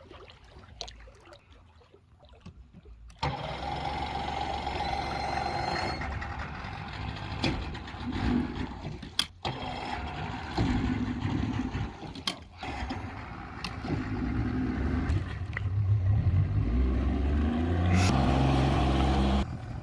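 A motor running steadily after about three seconds of near quiet, with its low hum stepping up and down and cutting out abruptly twice.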